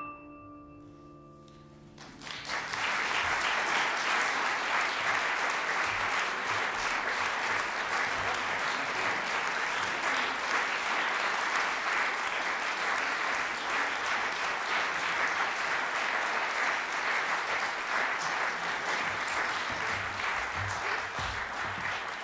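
The last chord of a soprano saxophone and grand piano dying away, the saxophone note stopping first. Then audience applause breaks out about two seconds in and goes on steadily.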